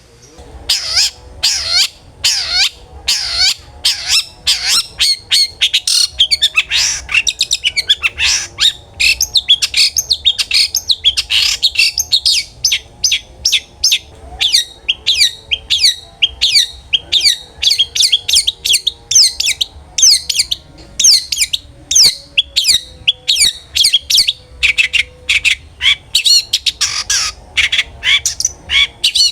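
Long-tailed shrike (cendet) in full, loud song: a fast, almost unbroken string of harsh, sharply falling notes, the open ngeplong style of a bird in peak singing form.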